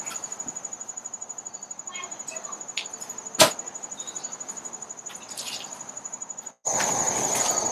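Insects chirping steadily in a fast, high-pitched pulse, with a single sharp click about three and a half seconds in. The sound cuts out briefly near the end and comes back louder.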